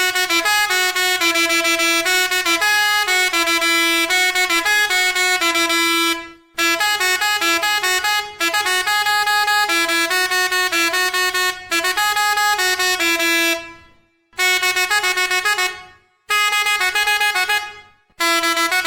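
Seger musical truck air horn playing its melodies: quick runs of loud horn notes stepping from pitch to pitch. The tune breaks off briefly about six and a half seconds in, then three more times in the last five seconds, as one melody ends and the next starts.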